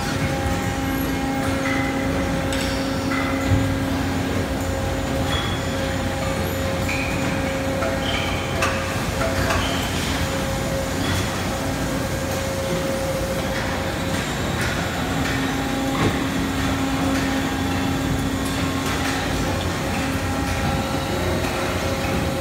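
Steady industrial machinery hum with several constant low tones. One low tone drops out for a couple of seconds about halfway through. Short higher pitched tones and scattered clanks and knocks come and go, the sharpest knock about three and a half seconds in.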